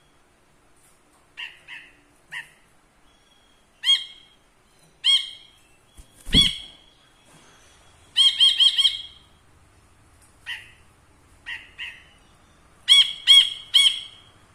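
Caged cinereous bulbul (brinji kelabu) giving short ringing call notes, singly and in quick runs of four or five, with a low dull thump about halfway through.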